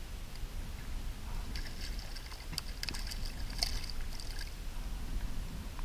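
Water splashing and crackling beside a kayak as a small hooked fish is pulled to the surface, a cluster of sharp splashes about one and a half to four and a half seconds in, over a steady low rumble of wind and water on the microphone.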